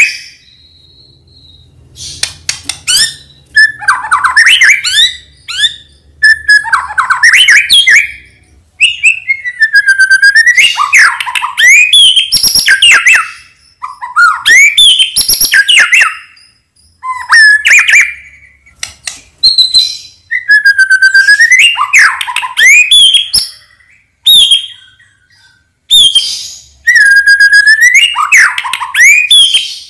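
Medan-type white-rumped shama (murai batu) singing vigorously: loud, varied phrases of gliding whistles, chirps and rapid trills, each lasting a second or two, with short pauses between them. Several phrases open with the same swooping whistle.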